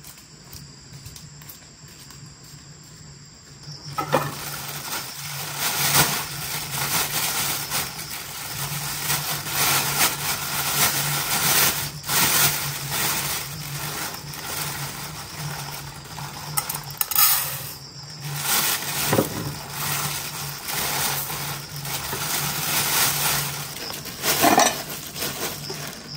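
Kitchen work: a steady hiss with scattered clinks and knocks of pots, dishes and utensils, starting about four seconds in.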